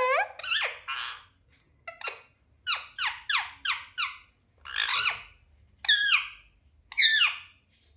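Indian ringneck parakeet giving a string of short, shrill chirping calls, about a dozen in all, with a quick run of four in the middle.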